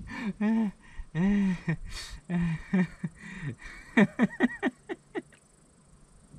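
Geese honking: a few separate honks, then a quick run of honks about four seconds in, dying away toward the end.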